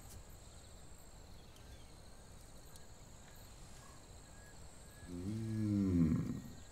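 Quiet room tone, then about five seconds in a man's low, drawn-out 'mm' hum that rises and falls in pitch.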